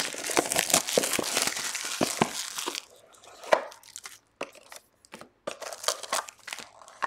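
The plastic wrap on a sealed Impeccable soccer trading-card box being torn off, a dense crinkling and tearing for the first three seconds or so. Then scattered rustles and light taps as the box is opened and the foil-wrapped pack is pulled from its cardboard insert.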